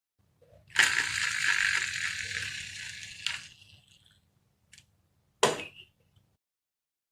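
Marbles rattling and rolling down a marble-run track, starting suddenly and fading out over a few seconds, followed by a light click and a sharper knock.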